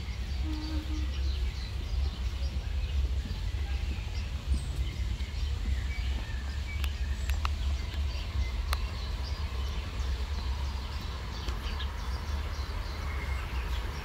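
Outdoor garden ambience: a steady, uneven low rumble of wind on the microphone, with scattered faint high chirps of birds and insects.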